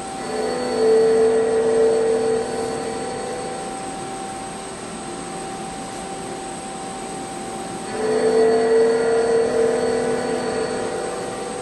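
CNC machine running with a steady high whine, twice swelling into a louder, lower-pitched hum for two to three seconds at a time.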